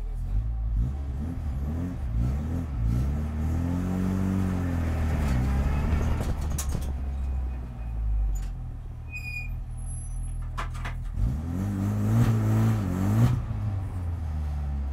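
Renault Clio Cup race car's engine heard from inside the stripped cabin at low speed. It runs at a low drone and rises in revs and falls back twice, about four seconds in and again about twelve seconds in.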